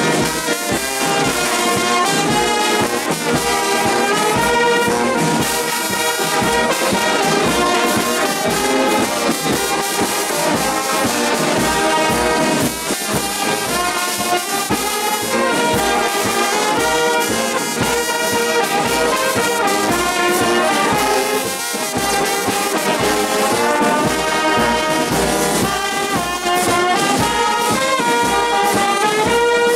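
A large brass band playing together: trumpets, flugelhorns, trombones, saxophones and sousaphones, with a conductor leading them.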